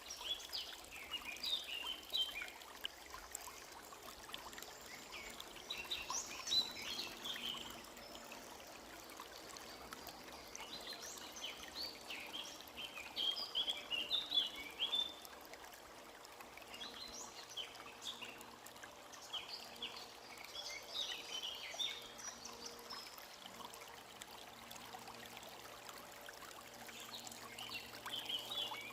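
A forest stream trickling and babbling steadily, with songbirds singing in short bursts of chirping phrases every few seconds.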